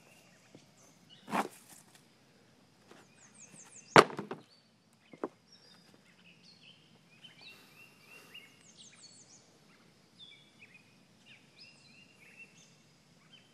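Birds singing, a run of short, high, downward-sliding notes repeated over and over, with a few sharp knocks, the loudest about four seconds in.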